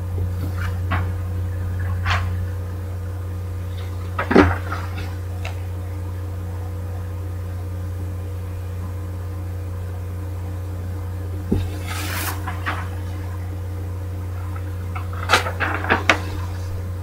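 Steady low electrical hum, with scattered knocks and a brief rustle as the drawing paper and the camera are handled. The loudest knock is about four seconds in, and there is a quick run of clicks near the end.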